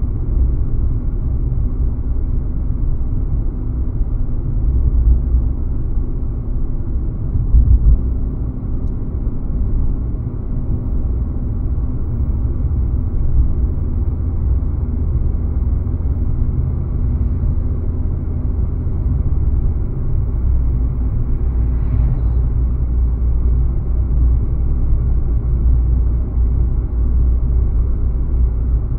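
Steady low rumble of a car driving along the road, engine and tyre noise together, with a brief louder bump about eight seconds in.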